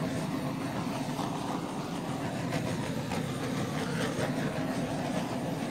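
Handheld gas torch burning steadily, its flame passed over wet acrylic paint to pop air bubbles in the white base coat.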